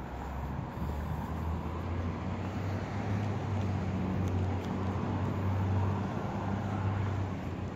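City street traffic: a low, steady vehicle engine hum with a wash of road noise, growing louder from about a second in and easing near the end.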